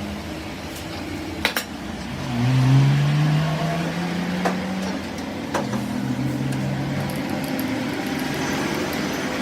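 A motor hums steadily and then rises smoothly in pitch for about three seconds before settling. A few sharp metallic clicks or knocks sound over it.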